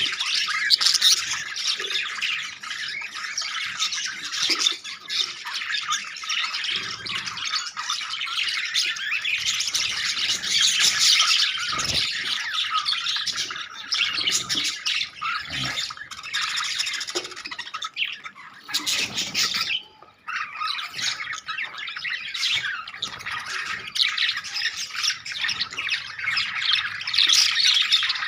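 A flock of budgerigars chattering and squawking continuously, many voices overlapping, with a brief lull about twenty seconds in.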